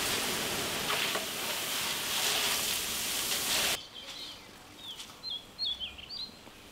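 Gram-flour batter dripping into hot oil, boondi frying with a loud, steady sizzle that cuts off suddenly after about four seconds. After that, birds chirp a few short falling calls.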